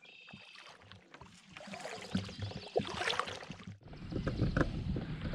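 Kayak paddle strokes on calm water: blades dipping, splashing and dripping, with scattered small knocks. About four seconds in the sound changes abruptly to a louder low rumble with sharp knocks.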